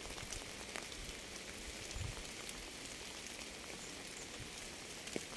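Steady rain: an even hiss with scattered drops ticking.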